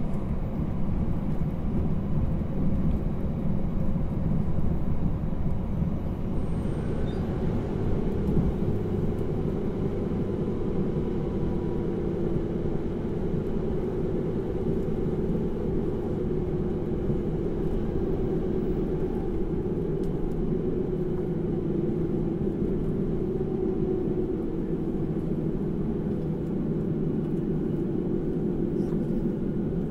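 Running sound inside the passenger cabin of a JR Hokkaido 789 series 1000 electric train: a steady rumble of wheels on rails and the car body. The low rumble eases a little about eight seconds in.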